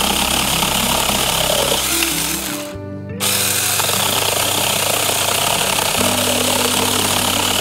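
Saker 18V cordless mini chainsaw cutting through an apple tree branch, its chain running loud and rough in the wood. It stops briefly about three seconds in, then cuts on.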